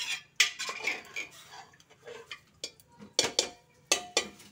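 Water poured from a steel bowl into a steel pot of dal, with splashing early on and several sharp clinks of the bowl against the pot, the loudest cluster near the end.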